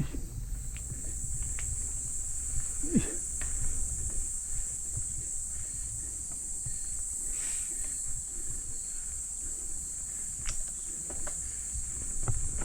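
Steady high-pitched chorus of insects over a low rumble, broken by scattered short clicks and knocks.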